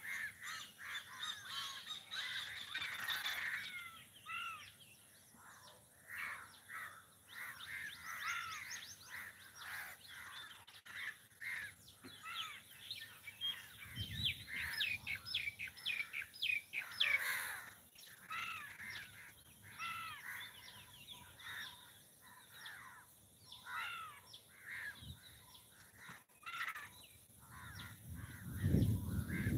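Crows cawing repeatedly, with other birds chirping. There is a brief low noise about halfway and a louder low rumbling noise near the end.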